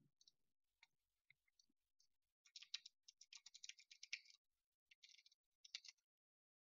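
Near silence, with faint rapid clicks in clusters: one run from about two and a half to four seconds in, and a shorter one around five to six seconds.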